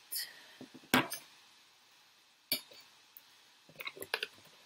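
Clinks and knocks of small robot-kit parts and tools being picked up and set down on a wooden tabletop. A sharp knock comes about a second in, another near the middle, and a quick run of clicks near the end.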